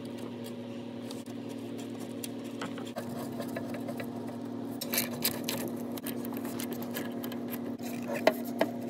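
A steady low mechanical hum with light metallic clicks and clinks of hand tools and small screws on a steel heat shield. Sharper clinks come about five seconds in and several more near the end.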